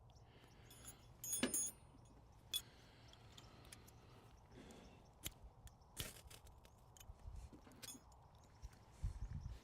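Scattered light metallic clinks and knocks of a titanium tent stove being handled while a fire is built in it, the loudest a ringing metal clink about a second and a half in, with a few dull low thumps near the end.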